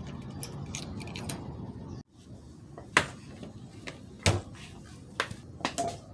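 Metal key clicking in a garage door's T-handle lock, then a handful of sharp separate clicks and knocks as a hard-shell skate helmet and a scooter are handled, the loudest about three seconds in.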